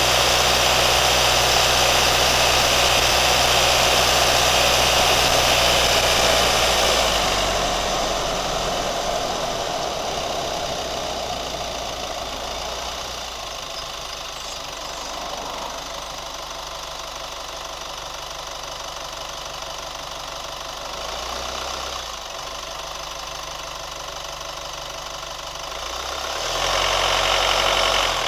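Chevrolet Colorado pickup's engine running steadily at raised revs, dropping back to a quieter, lower idle after about seven seconds and revving up again near the end.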